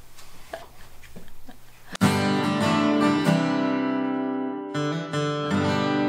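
Faint room noise, then about two seconds in a strummed guitar intro tune starts suddenly and carries on with ringing chords.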